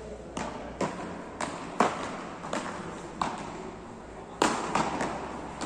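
Beach tennis paddles striking the ball in a rally: a quick series of sharp pops, with the loudest hits about two seconds in and again about four and a half seconds in.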